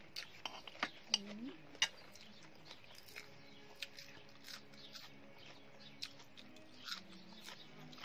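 Spoon clicking and scraping against a plate, several sharp clicks in the first two seconds, then sparser clicks of eating.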